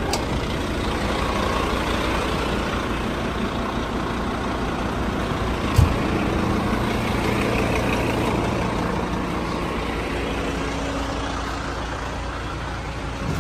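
Fire engine idling steadily, with a single short knock about six seconds in.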